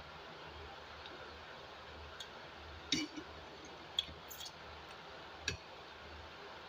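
Someone eating rice by hand at a table: a few short, sharp clicks and smacks from mouth and plate, bunched about halfway through, over steady low room noise.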